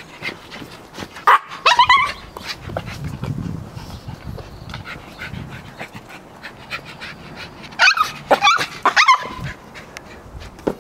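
Yorkshire terrier barking in excited, high yaps: a quick cluster about a second and a half in and another around eight to nine seconds in.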